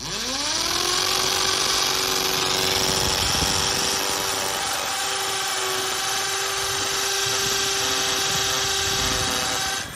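Harden 750172 710 W corded impact drill spinning up and drilling into a concrete floor. The motor whine climbs quickly at the start, then holds steady under a grinding noise, and cuts off suddenly just before the end.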